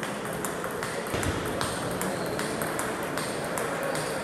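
Table tennis balls clicking off paddles and tables: many quick, sharp knocks at irregular spacing, overlapping from several games at once.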